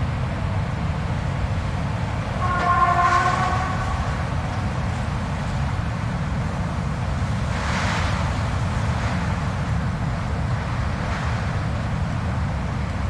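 Blizzard wind blowing steadily with a deep low rumble. About three seconds in, a brief pitched howl rises over it for about a second, and hissing gusts sweep through near the middle and again later.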